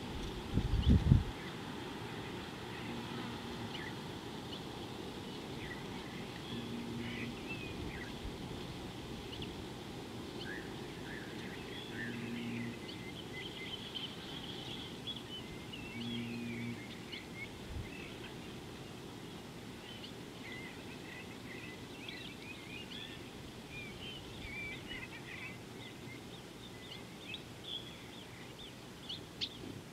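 Steady outdoor ambience with many small birds chirping and calling, thickest in the second half. There is a loud low thump about a second in, and a short low hum comes four times in the first half.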